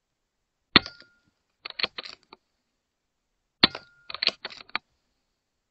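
Two shots from a .22 Airmaks Krait L PCP air rifle, each a sharp crack. The first comes about a second in and the second about three seconds later, and each is followed by a brief ring and a quick run of metallic clicks as the action is cycled for the next pellet.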